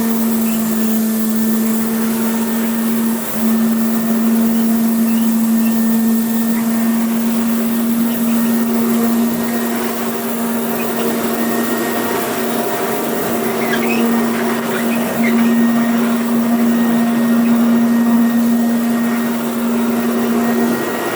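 1981 Electrolux Z411 upright vacuum cleaner with a direct-air motor, running steadily as it picks sand out of a carpet. It is a steady motor hum over the rush of air.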